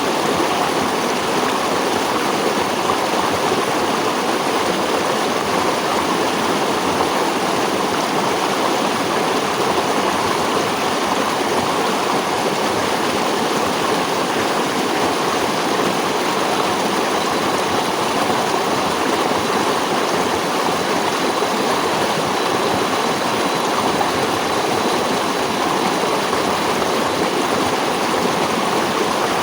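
A stream flowing steadily, a continuous even rush of water that neither rises nor falls.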